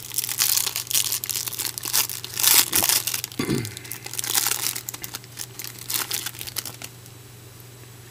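Wrapper of a baseball trading-card pack being torn open and crinkled, crackling in quick irregular bursts. The crackling is loudest about two and a half seconds in and dies away about a second before the end.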